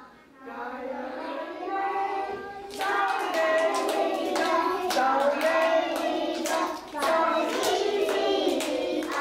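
A teacher and a group of young children singing a Cherokee-language morning song together. From about three seconds in they clap along, roughly twice a second.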